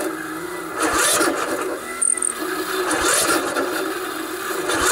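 Electric starter cranking a 16 hp Briggs & Stratton single-cylinder overhead-valve engine, turning it over slowly with a surge about once a second as it labours against compression, without the engine catching. It is really tough and struggling to turn over despite a good battery, which 9 times out of 10 means the valves need adjusting and too much compression is building up.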